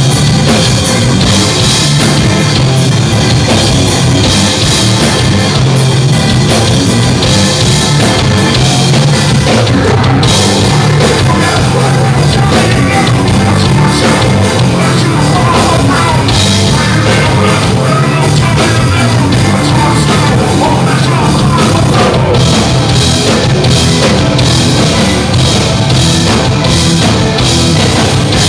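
Nu-metal band playing live at high volume: drum kit, guitars and bass, as heard on a tripod-mounted camcorder.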